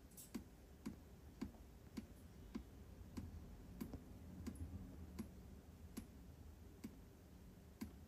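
Water dripping from an opened heat pump antifreeze valve, heard as faint separate drops. The drops come about twice a second at first and slow to about one a second near the end. The valve has opened because the water in it is near freezing, about 3 degrees.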